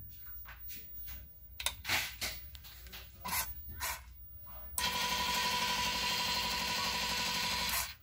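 A few scattered clicks and knocks, then about five seconds in a stepper motor driving an extruder-style wire feeder starts up and runs at a steady whine for about three seconds, stopping abruptly just before the end.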